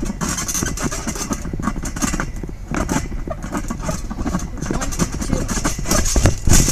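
Thumps and rustling from kids bouncing and tumbling on a trampoline, picked up by a phone resting on it, over a steady low rumble. The heaviest thumps come near the end.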